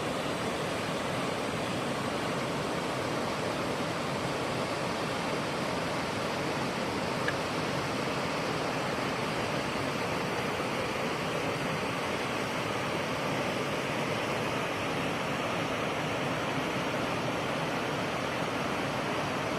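Mountain waterfall rushing steadily, a dense, unbroken roar of falling water.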